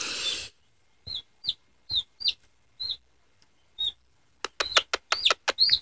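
Newly hatched chicken chick peeping: about ten short, high peeps, each dropping at the end, spaced irregularly. A brief rush of noise comes right at the start, and a run of sharp clicks falls between the peeps near the end.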